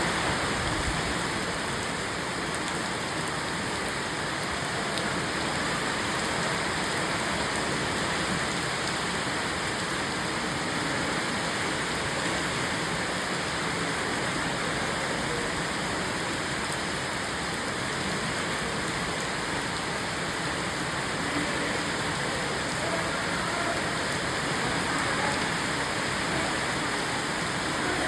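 Steady rain falling and pattering on surfaces, an even hiss without breaks.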